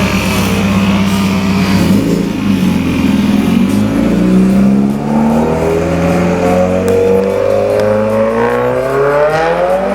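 Subaru WRX's turbocharged 2.0-litre flat-four running through an Invidia Q300 cat-back exhaust under hard driving. The engine note shifts around two seconds in, then rises steadily through the second half as the car accelerates up through the revs.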